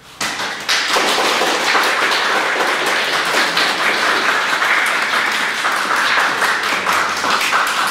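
Audience applauding: many hands clapping, breaking out all at once and going on steadily.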